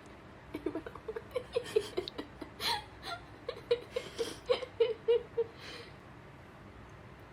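Seven-month-old baby vocalizing in a string of short, high, breathy sounds, between giggle and whimper, from about half a second in until near the end.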